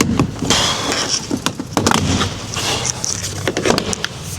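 Plastic speaker housing being levered off a van's cab door panel with a pry bar: a run of clicks, creaks and rattling plastic as the retaining clips let go.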